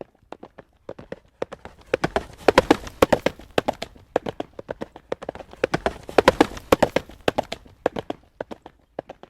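Horse trotting on a hard road surface: a regular clip-clop of hooves. The hoofbeats swell louder and come more thickly from about two seconds in, then ease back near the end.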